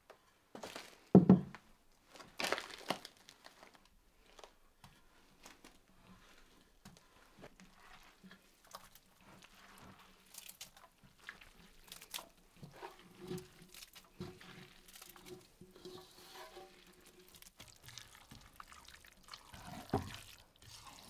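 Wet shredded cabbage and carrot scraped off a plate into a wooden barrel, with juice dripping and soft knocks and rustles of handling. There is a loud knock about a second in. Near the end, a wooden spoon stirs stewed cabbage in a cast-iron pot.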